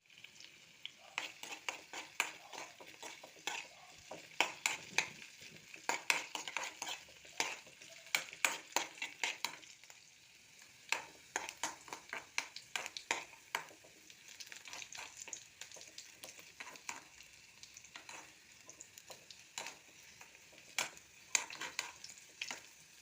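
Jackfruit seed pieces frying in oil with a steady sizzle. They are stirred in the pan, with frequent clicks and scrapes that come thickest in the first half.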